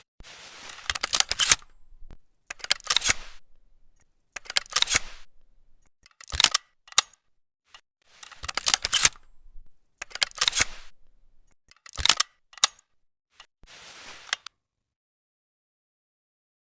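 Mechanical clicks and clacks of an over/under double-barrel shotgun being handled and readied, in about nine short bursts a second or two apart. The clicking stops a couple of seconds before the end.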